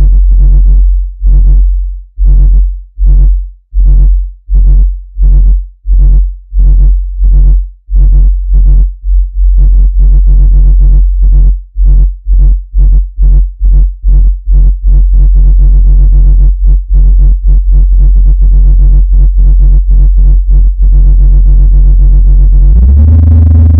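Low-pitched speaker-cleaning tone, a loud buzzing hum meant to vibrate water and dust out of a speaker. It is cut on and off in pulses, about once a second at first, then faster until it flutters rapidly, and near the end it steps up to a higher, steady pitch.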